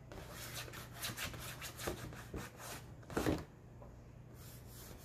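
White chalk held on its side, rubbed back and forth over black poster board in quick scratchy strokes, several a second, shading an area. A louder bump comes about three seconds in, and the strokes pause briefly after it.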